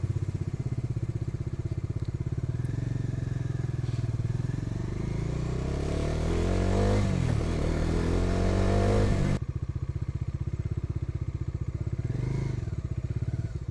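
Motorcycle engine running at low road speed, with a dip and climb in pitch about seven seconds in. After an abrupt change about two-thirds of the way through, it runs on steadily and low.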